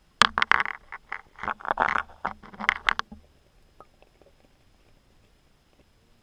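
A run of rapid, irregular knocks and rattles, heard underwater through the camera housing, lasting about three seconds and then stopping, with a few faint clicks after.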